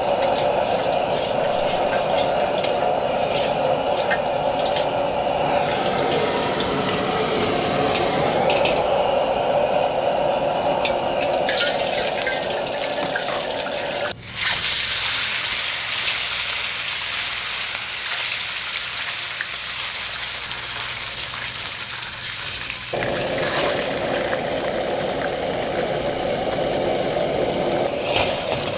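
Oil sizzling in an iron wok, an even hiss that starts abruptly about halfway through and runs on as slices of turnip cake fry. Under it, a steady low drone from the gas stove fills the first half, drops away for a stretch, and returns near the end.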